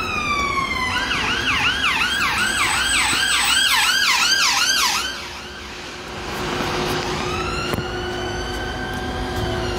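Emergency vehicle siren. A falling wail runs until about a second in, then switches to a fast yelp of roughly two sweeps a second that stops about five seconds in, and a slow wail rises again near the end.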